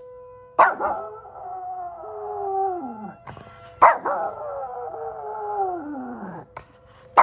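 Dog howling twice, each howl starting suddenly and sliding down in pitch over two to three seconds, set off by an emergency siren.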